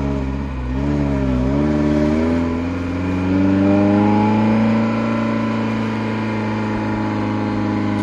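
Ferrari Mondial 3.2's V8 with a custom exhaust, heard from inside the cabin while driving. The engine note dips and rises twice in the first two seconds, then climbs steadily as the car accelerates and settles into a steady note at cruise.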